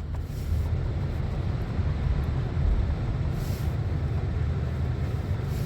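Steady low rumble and air noise inside a 2007 Lexus ES350's cabin, its climate-control fan blowing now that the heater control is working. A short hiss about three and a half seconds in.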